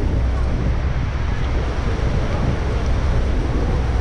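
Steady roar of wind and rushing water at the Niagara Falls, with heavy wind buffeting on the microphone.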